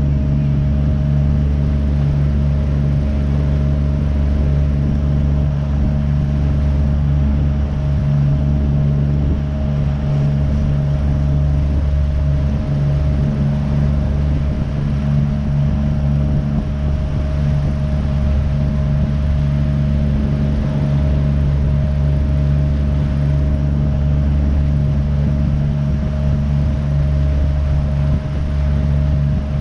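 Bass boat's outboard motor running steadily at speed, with a constant low drone and hull and water noise.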